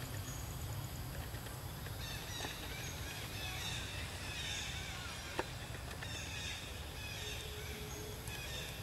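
Birds chirping over a steady low background rumble, with a single sharp click about five seconds in.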